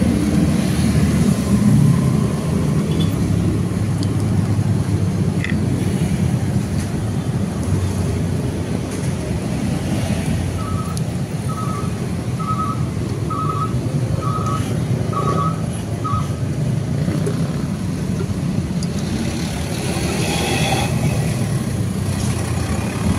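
Steady low rumble of motor vehicles. About halfway through, a run of seven short electronic beeps sounds about once a second.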